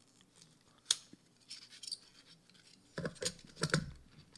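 Small handling noises of 16mm film being fed into a daylight spool by hand: a sharp click about a second in, some scratchy rustling, then a cluster of louder clicks and scrapes near the end.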